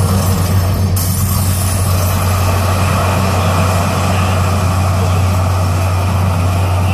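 Deep, steady low drone with a hiss of noise above it, from the sound design of an outdoor light-projection show played through loudspeakers.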